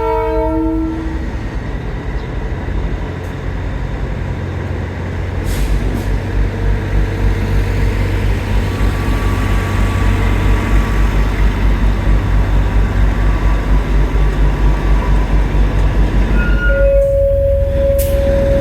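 Darjeeling Himalayan Railway toy train locomotive running slowly in reverse, with a low rhythmic pulsing of about two to three beats a second that builds from about five seconds in. A chorded horn dies away about a second in, and near the end a single-note horn sounds for about two seconds.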